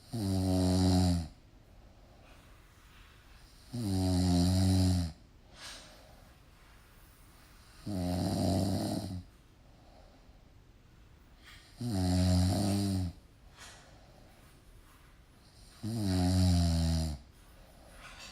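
Snoring: five long, low, pitched snores, about one every four seconds, each lasting a little over a second, with quiet between them.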